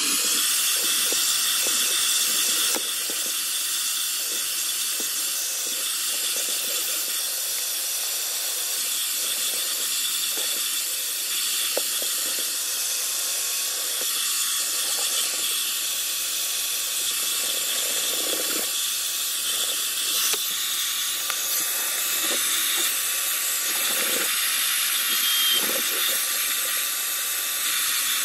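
Small portable carpet spot cleaner running on its vacuum setting: a steady high-pitched motor whine with hissing suction as the nozzle draws detergent water back out of the car's carpet.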